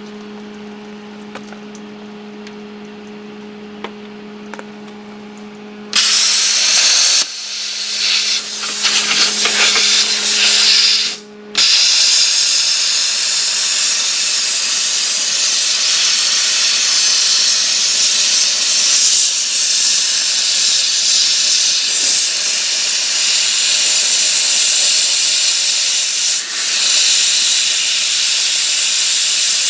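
Hypertherm Powermax 1000 plasma cutter's arc hissing loudly as it cuts through a lathe bed. It starts suddenly about six seconds in, cuts out briefly near the middle, then runs on steadily. Before the cut there is a steady low hum.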